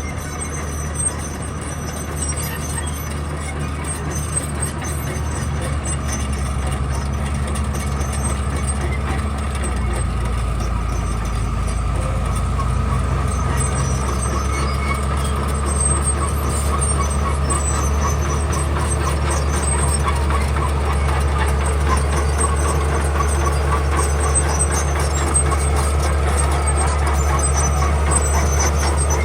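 Diesel engine of heavy earthmoving machinery running steadily, a low drone that grows gradually louder.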